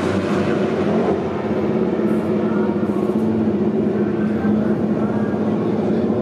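Two-stroke racing motorcycle engine running steadily at a constant speed.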